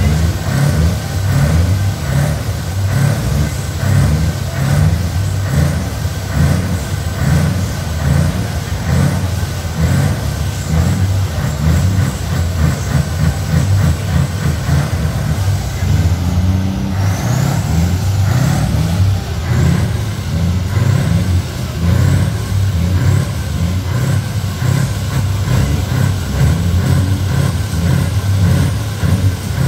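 Scania V8 truck engine running steadily, with a deep, pulsing exhaust rumble.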